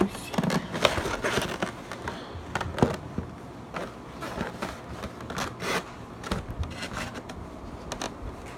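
Toy packaging being handled and opened by hand: irregular scraping, rubbing and crinkling with many short clicks and knocks.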